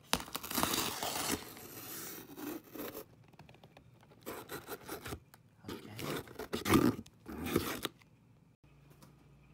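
Shipping package being torn open by hand: a long rip in the first second and a half, then several shorter tearing and rustling strokes between about four and eight seconds in.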